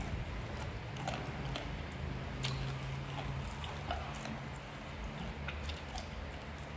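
Someone eating close to the microphone: chewing, with scattered small crunches and clicks, over a low steady hum.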